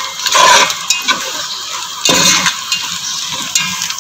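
Slotted spatula scraping and stirring ground bitter gourd seeds frying in oil in a pan, in a few swishing strokes, the loudest about half a second in and around two seconds.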